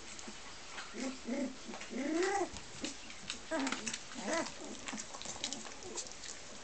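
Young puppies whimpering and squealing: a run of short high calls that rise and fall in pitch, the longest and loudest about two seconds in, with small clicks scattered between them.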